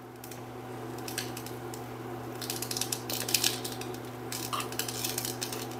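Light clinks and taps of bowls and utensils at a kitchen counter, scattered and more frequent in the second half, over a steady low electrical hum.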